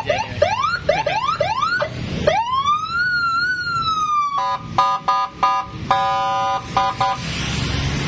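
Custom Senken police-escort electronic siren being tested, cycling through its modes: a string of quick rising whoops, then one long rising wail that wavers at its peak, then a choppy on-off beeping of several tones sounding together.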